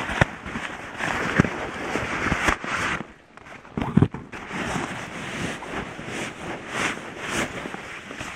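Close, crinkly rustling and handling noise of nylon tent fabric and camping gear, with a few sharp knocks: a small one near the start, one about a second and a half in, and the loudest about four seconds in.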